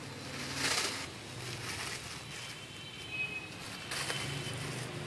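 Clear plastic food bag crinkling as a cat noses and paws at it: a short rustle just under a second in and a smaller one around four seconds, over a low steady hum.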